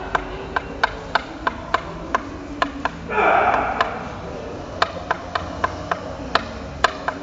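A steady run of sharp knocks, about three a second, with a short louder rush of noise about three seconds in.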